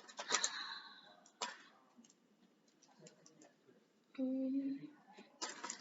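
Plastic Lego pieces clicking and rattling as they are handled and fitted together. A short hummed note from a voice comes about four seconds in.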